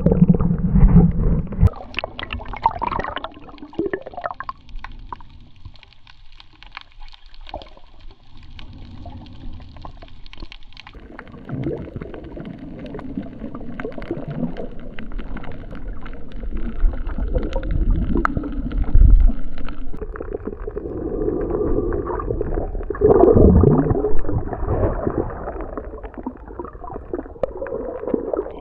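Muffled gurgling and bubbling of water heard from underwater, with irregular swells and knocks as the water moves around the camera.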